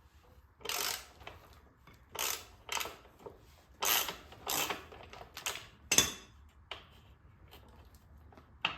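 Metal hand tools clinking and scraping against the motorcycle's rear axle and chain adjusters while the chain slack is being set: a string of short, irregular clanks with a sharp click about six seconds in.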